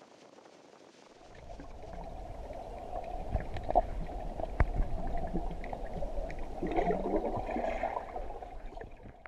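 Sound picked up by a camera under the water of a river: the low rumble of flowing water with gurgling and scattered sharp clicks and knocks. It starts about a second in and cuts off suddenly at the end.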